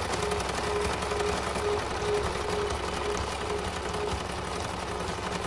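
Machinery in a small workshop running with a rapid, steady clatter.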